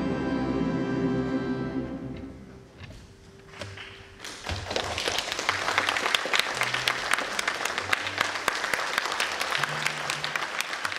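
An orchestra of Russian folk instruments (domras, balalaikas, bayans) holds its final chord, which dies away about two and a half seconds in. After a short pause, the audience breaks into applause about four seconds in and keeps clapping.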